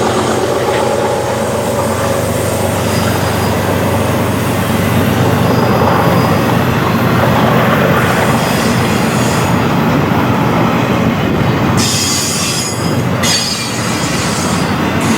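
BNSF freight train passing close by: a loud, steady rumble of the cars rolling, with thin high wheel squeals coming and going.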